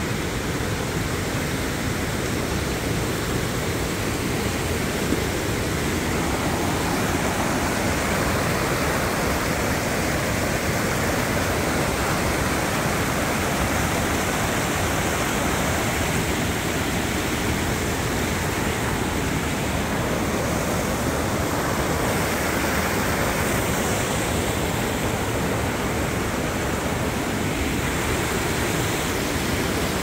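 Creek running: a steady rush of water that holds even throughout.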